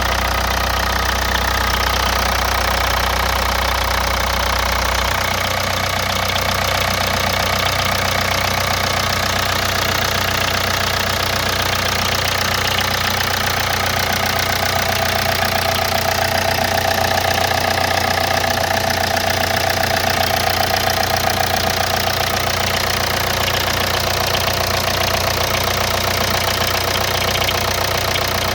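Hyundai Santa Fe DM's 2.2 four-cylinder diesel idling cold with a knock from the engine. The owner says the knock fades after 3–5 minutes of warm-up and suspects the hydraulic lifters. The deepest part of the hum drops about five seconds in.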